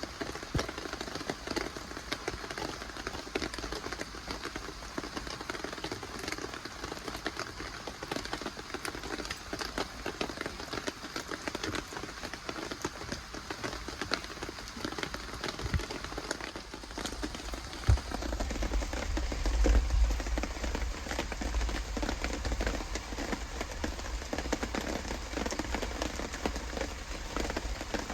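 Steady rain falling, a dense even hiss of small drop ticks. About two-thirds of the way through there is a single knock followed by a few seconds of low rumble.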